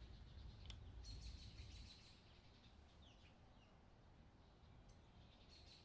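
Near silence with faint, high bird chirps: a short trill about a second in and a few quick chirps around three seconds.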